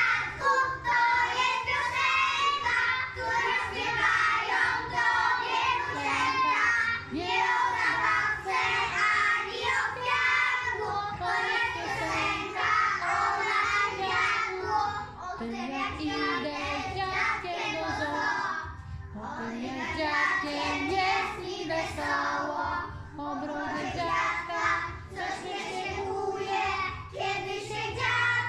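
A group of young children singing a song together, with short breaks between lines.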